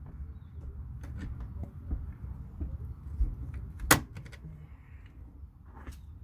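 A staple gun fires once, a sharp snap about four seconds in, amid lighter knocks and rustling.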